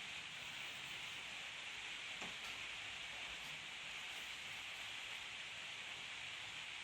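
Faint steady hiss of background noise, with a single light click about two seconds in.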